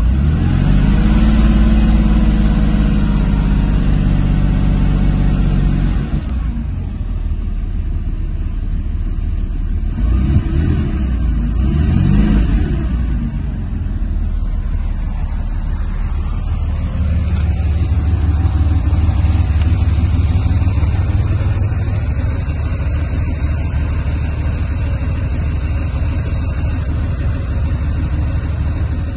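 Porsche 930 Turbo's 3.3-litre air-cooled turbocharged flat-six engine, revved up and held for a few seconds, dropping back to idle about six seconds in. A quick rev rises and falls around ten to twelve seconds in, then it settles into a steady idle.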